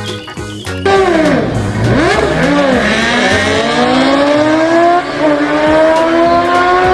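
Racing-car engine sound starting suddenly about a second in: the pitch swoops down and back up twice, then climbs steadily for several seconds with a short break partway, like a car accelerating up through the gears.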